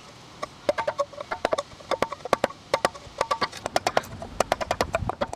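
Rapid, irregular sharp knocks on wood, about seven a second, some with a short hollow ring.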